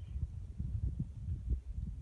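Wind buffeting the microphone: a low, uneven rumble with brief irregular thumps.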